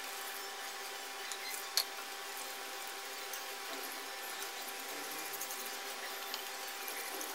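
Faint steady background hiss with a low hum and a few light clicks scattered through it.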